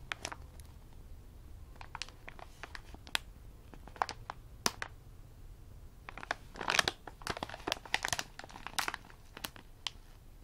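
Plastic bag of Party Krong Krang crispy snacks crinkling as it is handled and turned over in the hands. Scattered crackles, with a denser, louder run of crinkling from about six to nine seconds in.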